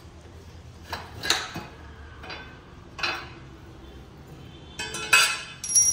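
Spanners and a steel motorcycle crash guard clinking and clanking on a tiled floor as the guard is unbolted and lifted off a Yamaha MT-15, a few sharp metallic knocks spread through, the loudest near the end with a brief ringing.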